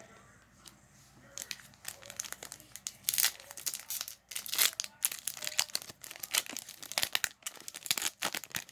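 A foil trading card booster pack being torn open and crinkled in the hands, a burst of irregular sharp crackling that starts about a second in.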